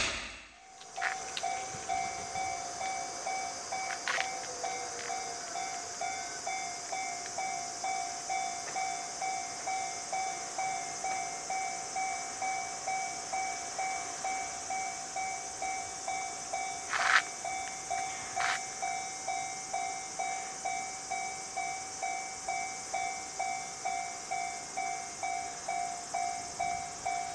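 Japanese railway level-crossing warning bell ringing, a steady repeating electronic ding just under twice a second. A few sharp clacks cut in, the loudest about two-thirds of the way through.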